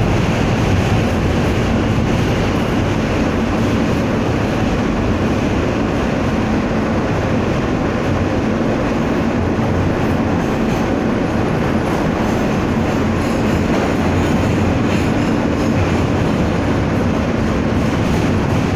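Subway train in motion heard from inside the car: steady noise of wheels on track and running gear, holding at an even level.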